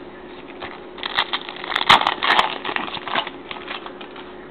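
Football trading cards and their pack being handled: a run of crinkly rustling and small clicks from about a second in, dying away after about three seconds.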